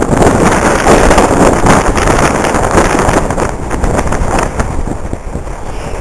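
Strong gusting wind of about 40–80 km/h blasting the microphone: a loud, low rumbling rush that is strongest about one to three seconds in and eases a little near the end.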